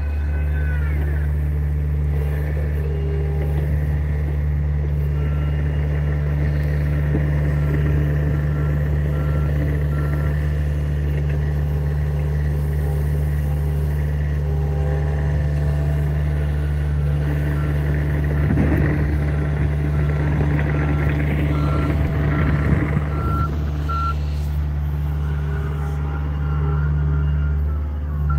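John Deere compact excavator's diesel engine running steadily under work, with its warning alarm beeping at a regular pace from a few seconds in until near the end. Some clattering noise comes in about two-thirds of the way through.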